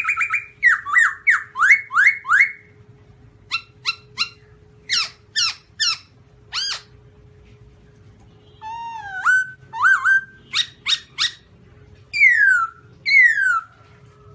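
Black-throated laughingthrush (Garrulax chinensis) singing loud, clear whistled phrases. It opens with a quick run of rising notes, gives a series of loud whistles, pauses briefly, and ends with two long falling whistles near the end. A faint steady hum runs underneath.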